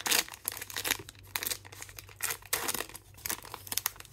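Crinkling and rustling of a plastic trading-card pack wrapper as the cards are handled, in irregular bursts, loudest just after the start.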